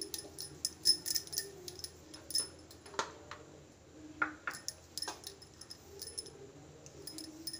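Steel spoon spreading ghee over rolled-out paratha dough: light, irregular metallic clicks and scrapes as the spoon taps and slides on the dough and board.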